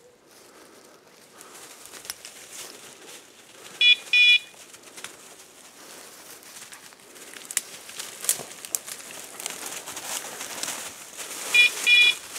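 Electronic beeper collar on a pointing English setter giving a short double beep twice, about eight seconds apart, the point-mode signal that the dog is standing on point. Twigs crackle and dry leaves crunch underfoot in between.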